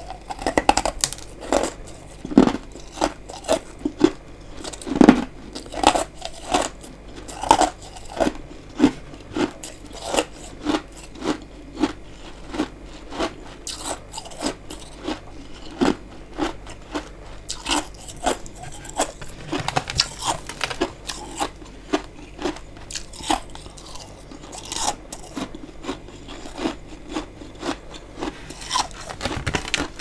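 Close-miked chewing of powdery freezer frost: a steady run of crisp crunches, about two a second.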